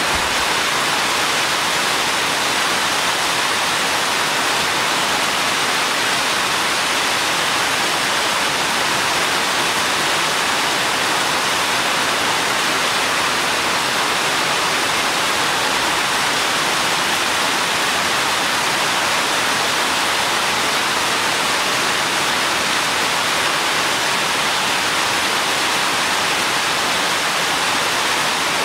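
Steady rain falling, an even hiss with no separate drops or thunder standing out.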